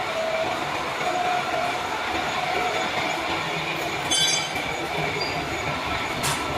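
CNC metal-machining equipment running steadily, a dense mechanical din with faint tones, and a short high squeal about four seconds in.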